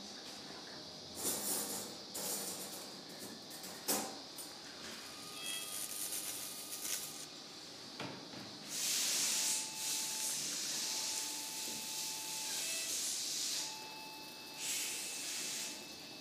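Electrocautery from a Valleylab SSE2K unit sizzling through a dog's tissue in short hissing bursts, the longest about a second and a half, with a steady beep-like tone from the generator sounding while it is on.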